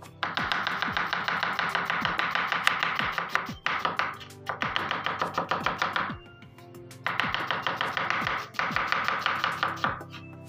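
A kitchen knife chopping an onion on a bamboo cutting board: a run of quick knife strikes against the wood. Background music plays over it, dropping out for a moment about halfway through.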